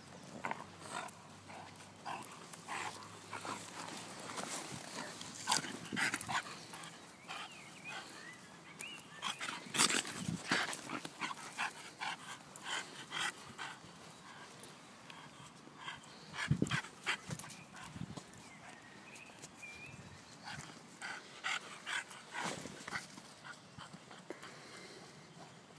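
Young English bulldog playing with a stick: irregular knocks and clicks, with the dog's own sounds among them.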